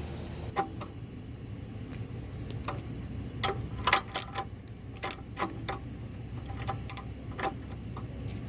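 Irregular sharp metallic clicks and clinks, bunched in the middle, over a steady low hum.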